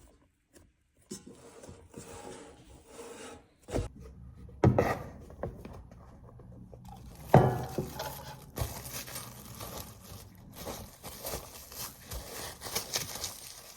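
Rubbing and scraping on a hard surface, with a few sharp knocks; the loudest knock comes about halfway through.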